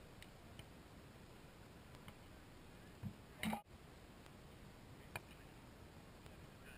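Faint beach volleyball rally: a few sharp, distant smacks of hands hitting the ball over a low steady hiss, with one louder short noise about three and a half seconds in.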